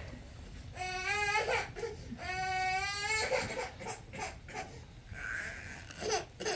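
Infant crying: two wavering wails, a short one about a second in and a longer one about two seconds in, then softer sounds.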